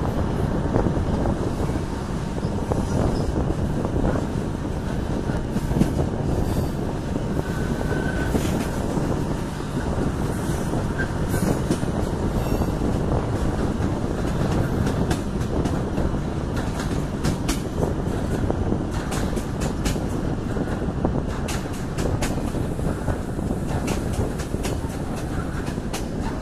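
Passenger train running on the rails, heard from an open coach window: a steady rumble of wheels on track with sharp clickety-clack over rail joints and points, the clacks coming thicker in the second half.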